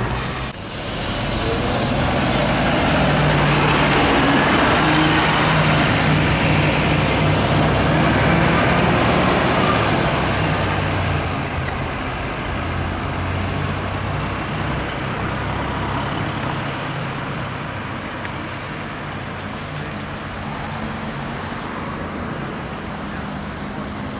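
Diesel engine of a Mercedes-Benz Citaro city bus pulling away and driving off, loudest in the first half and fading after about ten seconds into general traffic noise.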